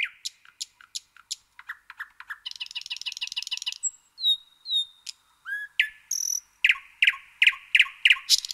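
Songbirds singing: quick chirps, a fast buzzy trill, clear whistled notes, and a run of loud repeated notes near the end.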